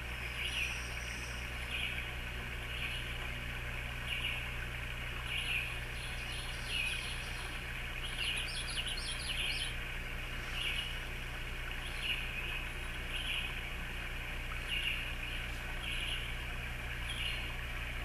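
Soleil Sleep Spa sunrise alarm clock sounding its birdsong alarm: recorded birds chirping through the clock's speaker, short chirps about once a second with a quick flurry of chirps about eight seconds in, over a steady low hum.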